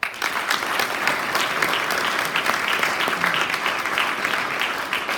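Audience applauding, starting suddenly and holding steady, loud and dense.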